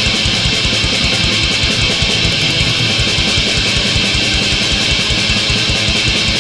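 Black metal: dense, distorted electric guitars over fast, even kick drumming, played loud and steady throughout.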